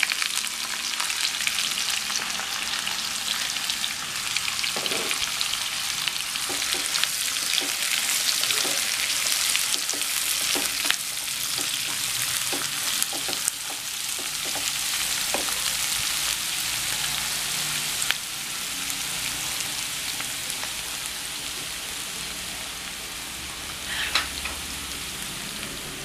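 Sliced onions sizzling in hot oil in a kadai just after being tipped in, stirred with a wooden spatula that knocks now and then against the pan. The sizzle eases a little in the second half.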